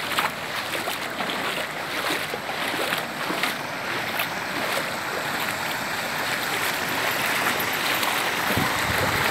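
Muddy floodwater rushing and churning as it spills over the edge of a flooded road, the rush growing a little louder toward the end.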